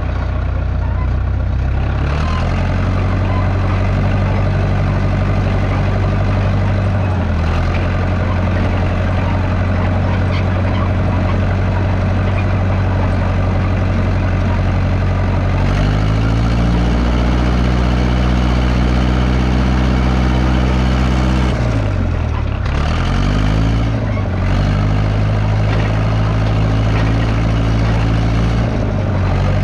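1969 Massey Ferguson 300 dozer engine running steadily. Its pitch steps up twice, about two seconds in and again about halfway, then sags sharply and climbs back about three-quarters of the way through.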